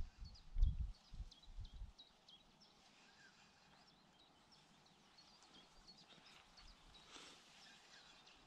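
Small birds chirping, short high falling notes repeated a few times a second. Low rumbling buffets on the microphone in the first two seconds.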